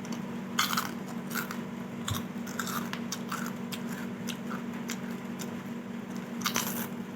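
A person chewing and biting food close to the microphone, mukbang-style: irregular crisp, crunchy clicks and mouth sounds, over a steady low hum.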